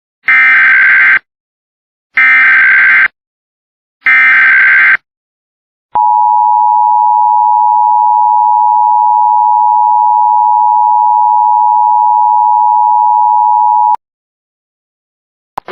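Emergency Alert System SAME header: three short bursts of data tones, each about a second long, then the steady two-tone EAS attention signal (853 and 960 Hz) held for about eight seconds and cutting off sharply. The tones open an Amber Alert (child abduction emergency) broadcast.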